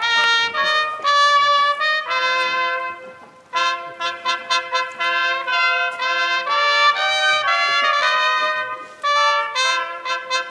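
Slow instrumental music, several sustained notes sounding together as chords that change about every second, with a short break about three and a half seconds in.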